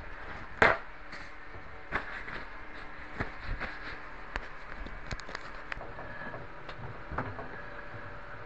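Scattered clicks and knocks from fitting the outer clamp ring over a front-loading washing machine's rubber door gasket, the loudest sharp knock about half a second in.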